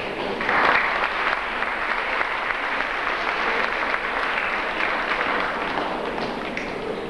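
Audience applauding, swelling about half a second in and slowly tapering off toward the end.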